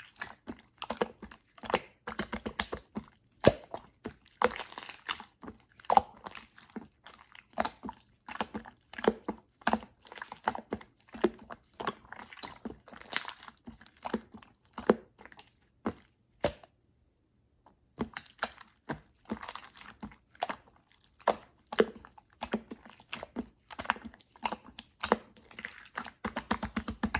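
Clear slime being squeezed and poked by hand, giving a rapid, irregular stream of sticky clicks, crackles and small bubble pops, with a break of about a second a little past halfway.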